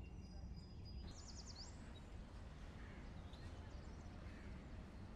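Quiet outdoor ambience: a steady low rumble, with a quick run of a few high bird chirps about a second in.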